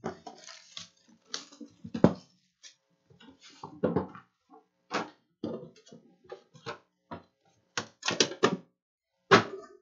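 Hands opening a Panini Immaculate Collection basketball hobby box: the cardboard lid pulled off and the red inner box lifted out and set down on the table. An irregular string of knocks and thunks with scraping rustles between them, the loudest near the end.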